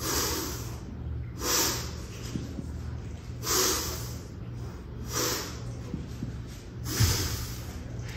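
Short, sharp hissing exhalations, five of them about every one and a half to two seconds, timed to the reps of double kettlebell cleans. Near the end a dull thump as the two kettlebells are set down on the rubber mat.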